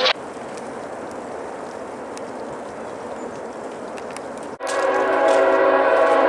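Steady background hiss, then an abrupt cut about four and a half seconds in to a locomotive air horn sounding a loud, steady multi-note chord as a CSX freight led by a GE ET44AH approaches the grade crossing.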